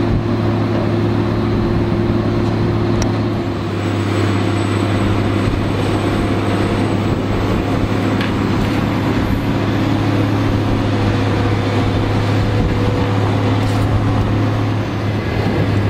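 Caterpillar excavator's diesel engine running steadily under load, a constant low drone, while its hydraulic demolition shear lifts a boat engine out of the wreck.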